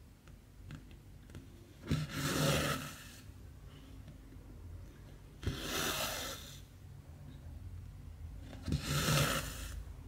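Cotton embroidery thread drawn through 14-count stamped cross-stitch fabric, three times, each pull a short tick as the needle goes through followed by about a second of rasping as the thread slides after it.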